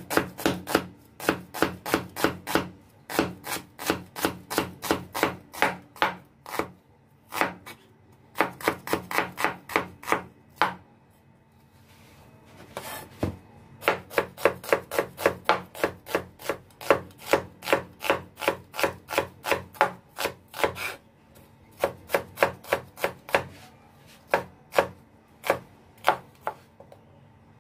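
Wide-bladed kitchen knife chopping a red onion on a wooden cutting board: quick, even knife strikes, about four a second, in runs broken by a few short pauses.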